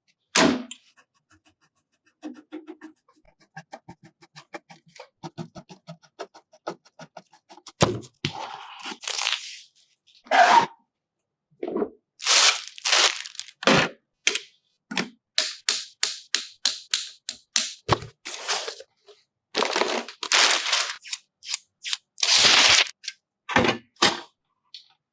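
A long run of sharp clicks, cracks and knocks. Small ticks come in quick succession at first, then louder clicks and short swishes follow one after another.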